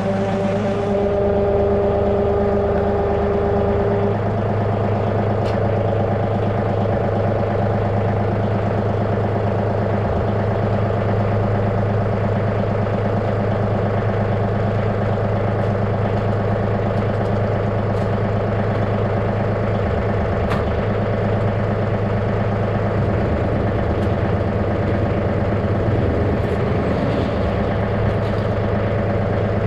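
John Deere 2038R compact tractor's diesel engine idling steadily as it warms up after a start.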